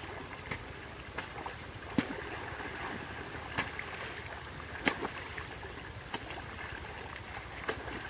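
Shallow river water flowing steadily, with short sharp splashes every second or so as a bag of crushed roots is worked by hand in the water to squeeze out its fish poison.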